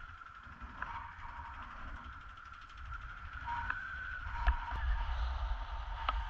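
Wind rumbling on an action camera's microphone in flight under a tandem paraglider, growing stronger about three seconds in. A faint steady high tone runs underneath, and a few sharp clicks come through.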